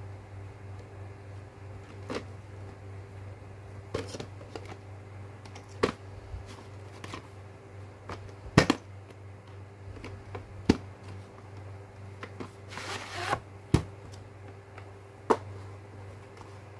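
A plastic VHS cassette and its cardboard slipcase being handled: scattered clicks and taps, a few sharp knocks, and a brief scraping rustle about three-quarters of the way through as the cassette slides out of the sleeve. A steady low hum runs underneath.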